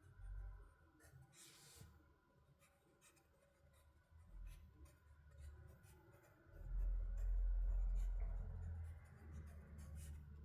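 Soft scratching and small handling sounds, like pen on paper or objects being moved, with a low rumble for a couple of seconds about two-thirds of the way through.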